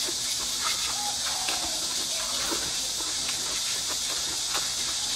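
Stir-fried Jiangxi rice noodles being slurped in through the lips, with wet sucking and smacking sounds and small clicks, over a steady high hiss.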